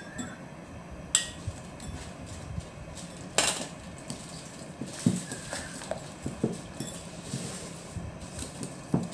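Wire whisk clinking and scraping against a glass mixing bowl as thick batter is stirred, in irregular clicks and knocks, with a sharper knock about three and a half seconds in.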